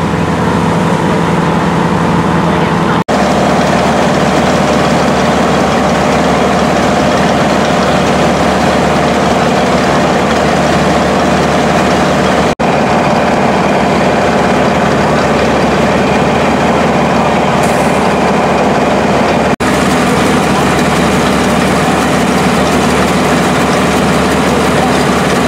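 Fire engines running steadily at pumping speed, driving their pumps to throw water streams, with a broad hiss over the engine hum. Three brief dropouts break the sound.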